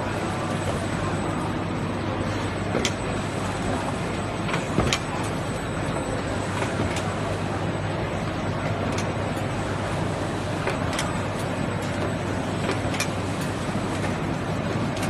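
VOKEDA VKD M1250 automatic folder gluer running: a steady mechanical drone of belts and rollers, with a sharp click every couple of seconds.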